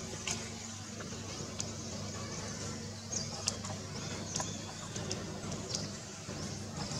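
A steady low engine hum, with scattered short sharp ticks higher up.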